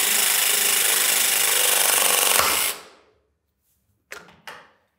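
REMS Mini-Press 22 V ACC cordless electro-hydraulic press tool running a press cycle on a copper press fitting. Its motor and pump run steadily with a faint whine and stop about three seconds in. Two short clicks follow near the end.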